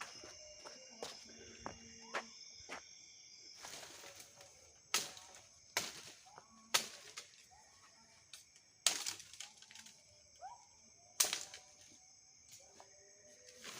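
Dry twigs and leaf litter cracking and crunching in a series of sharp snaps, about half a dozen loud ones and many small clicks, over a steady high insect drone.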